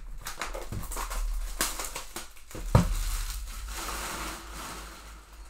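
Plastic shrink wrap being slit and stripped off a cardboard trading-card box, crinkling and crackling, with a sharp thump just under three seconds in.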